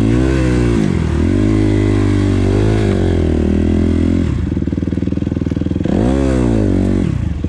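Dirt bike engine revving up and down as the rider rolls on and off the throttle, the revs dropping sharply about a second in and again around four seconds, then climbing and falling once more near the end.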